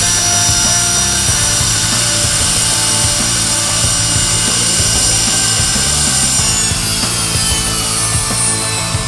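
Scorpion jet's Honeywell TFE731 turbofan engine running on a ground run, a loud steady rush with high turbine whine; about two-thirds of the way through, the whine starts to fall in pitch as the engine slows.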